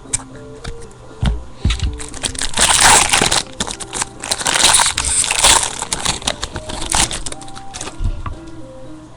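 Trading-card packs and cards being handled: loud crinkling and crackling, in two long stretches about two and a half and four and a half seconds in and a shorter one near seven seconds. Background music plays underneath.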